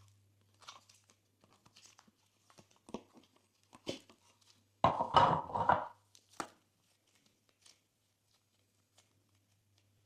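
Glossy slime being pressed and stretched, giving scattered sticky clicks and crackles, with a louder burst of crackling pops about five seconds in that lasts about a second.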